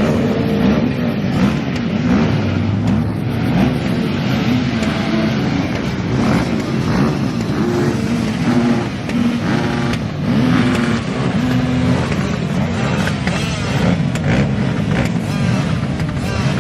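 Several small motorbike engines (pit bikes and dirt bikes) running and revving at once, their pitches stepping up and down as the throttles open and close.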